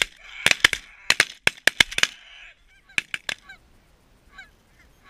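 A volley of shotgun shots from several hunters, about a dozen sharp cracks in quick succession over the first three and a half seconds, as a flock of geese passes overhead. The geese keep honking between and after the shots.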